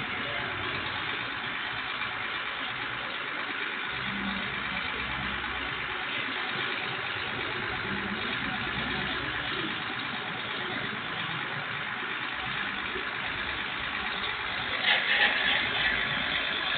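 Fire engine idling steadily, heard through a security camera's microphone, with a deeper rumble from about four to nine seconds in. A few short, louder sounds come about fifteen seconds in.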